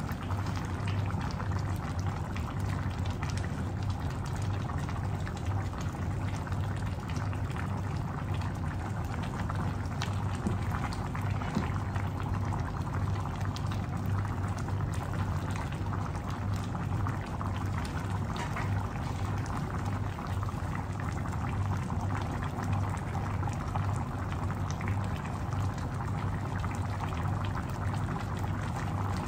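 Coconut-cream stew of crabs and prawns bubbling in an open pan on a gas stove, with many small pops and crackles over a steady low hum.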